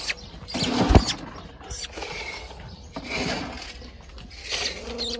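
Young podenco puppies making small squeaks and grumbles amid rustling, with a single sharp thump about a second in.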